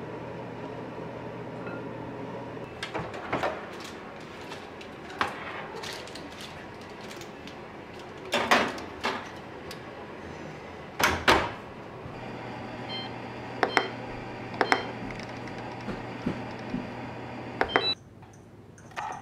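Household handling sounds: a series of sharp knocks and clicks, like things being set down and doors or lids being worked, over a steady appliance hum that cuts off suddenly near the end.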